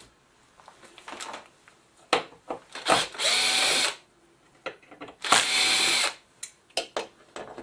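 Cordless drill-driver running twice, about a second each time, backing screws out of a metal cover plate, with small clicks and knocks of handling in between.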